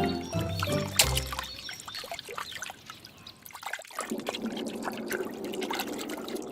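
Cartoon water sound effect: water trickling and bubbling, with children's music fading out over the first two seconds.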